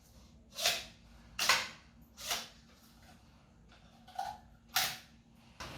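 Hard plastic chair parts being handled, giving about five sharp clacks at irregular intervals.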